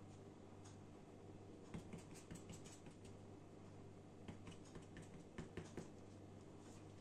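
Faint light taps and clicks of a small plastic doll figure being hopped across a foam play mat, in two short clusters about two seconds and five seconds in, over a low steady hum.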